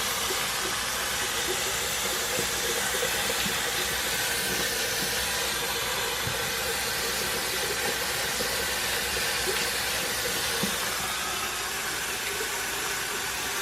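Tap water running steadily from a sink faucet, an even hiss.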